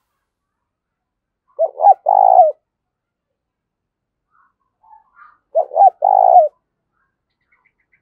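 Caged decoy spotted dove cooing its fight-provoking call twice, a few seconds apart. Each call is two short notes followed by a longer one.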